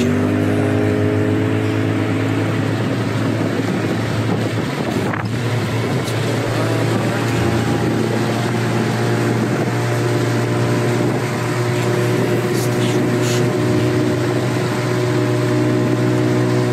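An engine running steadily at an even speed, a continuous low hum with a few faint clicks over it.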